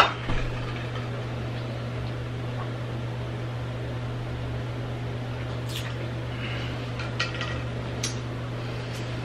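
A plastic tumbler of ice water being handled: a sharp knock as it is picked up, then a few light clicks and knocks a little before the end as it is drunk from and set back down. A steady low hum runs underneath.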